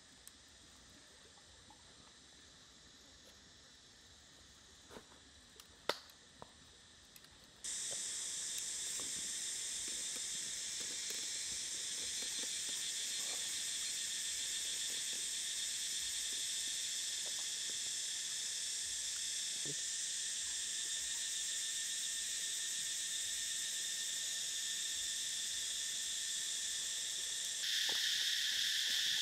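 Steady high-pitched chorus of insects, much louder from about eight seconds in and louder again near the end, with a sharp click about six seconds in.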